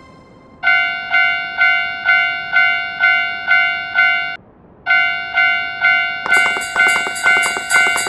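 Japanese railroad crossing warning bell ringing "kan-kan" in a steady rhythm, about two strikes a second. It breaks off briefly about halfway, then starts again, and from about six seconds in sleigh bells jingle along with it.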